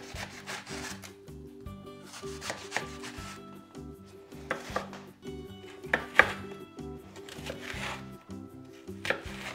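Chef's knife cutting an aubergine on a wooden cutting board: long slicing strokes through the flesh early on give way to a run of sharper chops as the strips are diced into cubes, the blade knocking on the board.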